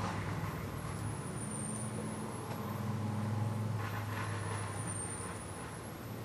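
Low steady mechanical hum with a faint high whine that slides slowly up and down, and a brief hiss about four seconds in.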